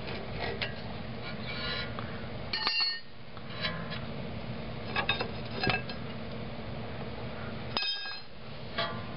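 Steel leaf-spring U-bolts being pulled off an axle's spring perch: scattered metal clinks and scrapes, with two ringing clinks, one about two and a half seconds in and one near the end.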